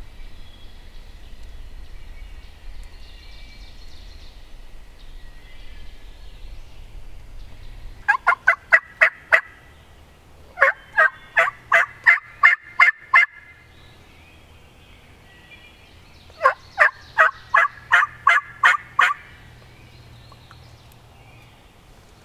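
Three loud series of turkey yelps, each a quick run of about eight to eleven sharp, evenly spaced notes.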